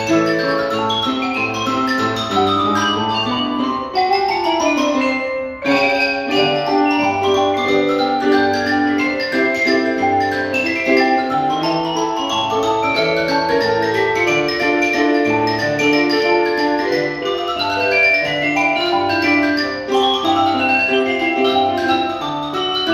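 Mallet percussion ensemble of marimba, vibraphone and a second mallet keyboard playing a ragtime fox trot. Quick chromatic runs climb in pitch over and over above a steady low bass line, with a brief break about five and a half seconds in.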